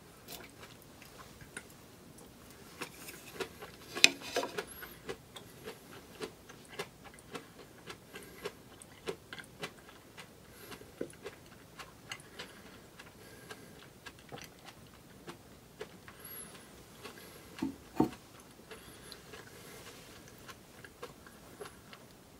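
Close-up chewing of a bite of blanched rapeseed greens: a run of small crisp clicks, roughly two a second. A sharper knock comes about four seconds in and a double knock near eighteen seconds.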